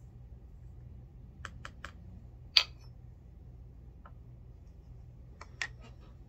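Light clicks and taps of a plastic powder funnel and brass 300 Blackout cases being handled in a loading block. There are three quick clicks about a second and a half in, then one sharp, loud clack. A single faint tick follows, and another small cluster of clicks comes near the end, over a faint steady hum.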